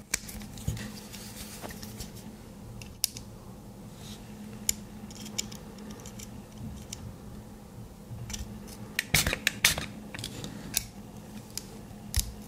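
Scattered small clicks and scrapes of a tool prying at a tiny earphone speaker to work its neodymium magnet loose, with a quick run of clicks about nine seconds in.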